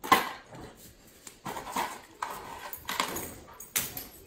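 A plastic basket set down on a tile floor with a sharp knock, followed by several lighter knocks and clicks.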